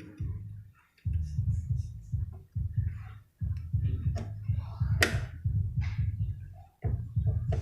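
Low, rapid thumping through a PA loudspeaker during a mixer sound check. It comes in short runs of several beats a second, with brief gaps between them.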